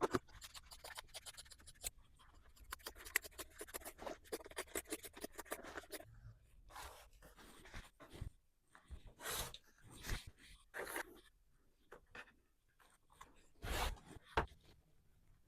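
Close-up sounds of denim being worked by hand, cut and handled. For about six seconds there is a fast run of fine scratchy strokes, then a string of separate, louder rustling swipes.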